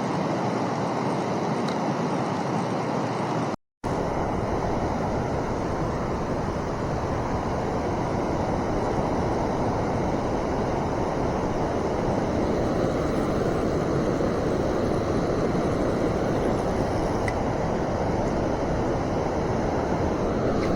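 Steady outdoor rushing noise with no distinct events, cut by a brief total dropout about three and a half seconds in.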